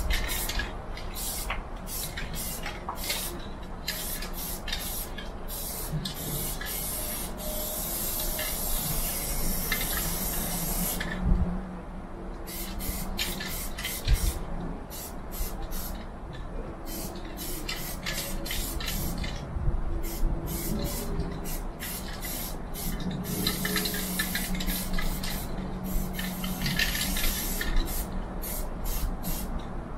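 Aerosol spray-paint can hissing in many short bursts, with two longer continuous sprays, one about eight seconds in and another near the end.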